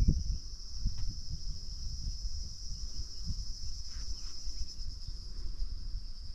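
Steady high-pitched chorus of insects from the surrounding forest. Wind buffets the microphone in uneven low gusts.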